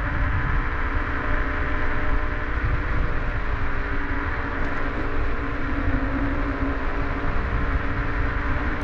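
Toursor E8 Pro electric scooter riding at a steady speed: wind rumble on the microphone and tyre noise on the road, with a steady motor whine over it.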